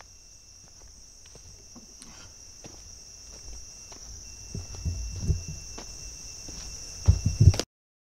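A steady, high-pitched chorus of insects, with footsteps on dirt and some low thumps that grow louder and come most strongly near the end. Then the sound cuts off suddenly.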